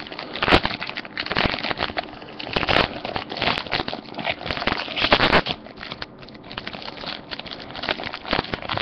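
Foil trading-card pack wrapper crinkling and crackling in irregular bursts as hands pull it open.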